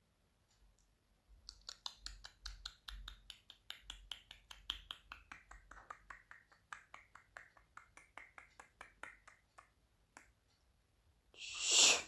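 A person making rapid mouth clicks with the tongue, about five a second for some eight seconds, the pitch of the clicks sliding downward as the mouth shape changes. A short breathy 'shh' exhale follows near the end.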